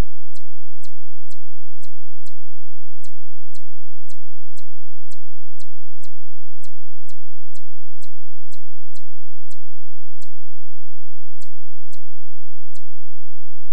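A small animal's high chip call, repeated evenly about twice a second and stopping near the end, over a steady low hum.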